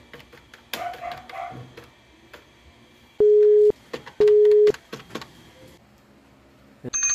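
Desk telephone being dialed: scattered clicks of keypad buttons pressed one by one, with a short clatter about a second in. Midway, two loud steady telephone tones of about half a second each, half a second apart, and just at the end a high electronic ring starts.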